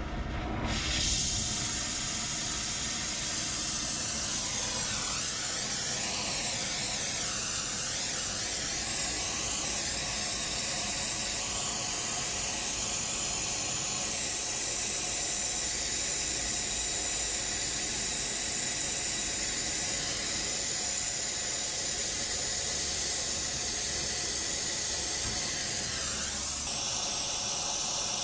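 Gas torch flame hissing steadily as it heats a soldered copper refrigerant-line joint to melt it free, starting up about a second in.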